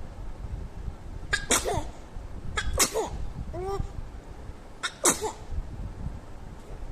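Two-month-old baby making short breathy squeals and coos, about four of them spaced a second or so apart, each with a sharp breathy start and a quick bend in pitch.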